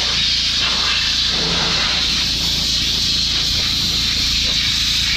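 Pressure washer wand blasting a high-pressure water jet onto a truck's greasy frame and engine bay: a loud, steady hiss of spray on metal, with a steady low hum underneath.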